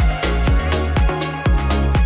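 Background electronic music with a steady beat, about two beats a second over a sustained bass.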